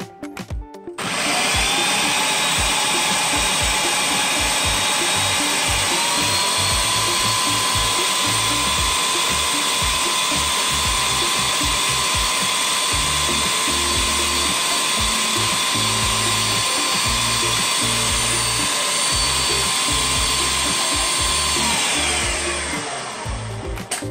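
Ninja countertop blender motor running, blending onions and fermented sesame seeds into a paste. It starts about a second in, steps up in speed about six seconds in, runs steadily, then winds down with falling pitch near the end.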